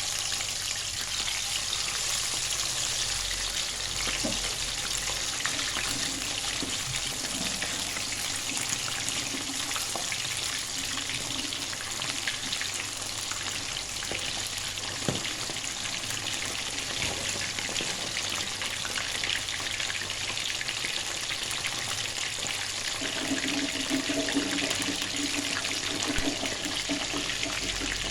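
Short mackerel frying in hot oil: a steady sizzling hiss with scattered small pops and crackles.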